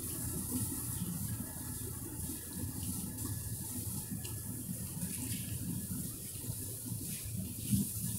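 Steady rushing background noise, with faint small clicks and mouth sounds of a person chewing food.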